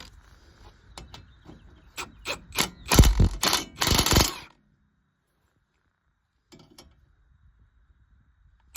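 A few clicks, then two short bursts of impact wrench hammering, about three and four seconds in.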